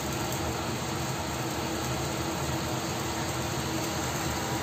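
Steady, even rushing noise with a faint low hum from a lit gas stove burner heating a stainless steel pan of marinade sauce toward a boil.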